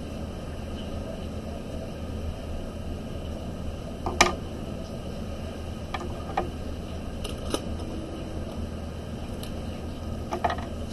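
A handful of short, sharp clicks and taps as art pens are handled and set down on the table, the loudest about four seconds in, over a steady low hum.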